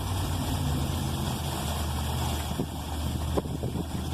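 A steady low engine hum, with a few short clicks in the second half.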